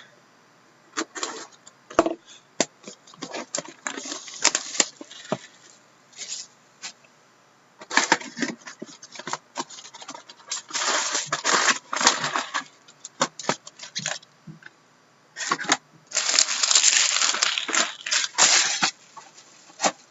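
Trading-card box and foil packs being opened by hand: a run of clicks and handling noises, with two longer bursts of crinkly tearing, about halfway through and near the end.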